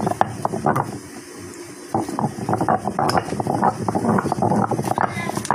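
Stone pestle of an aattukal (Tamil stone wet grinder) turned by hand in its stone bowl, crushing dried red chillies: irregular scraping and knocking of stone on stone, quieter for a second or so early in the grinding.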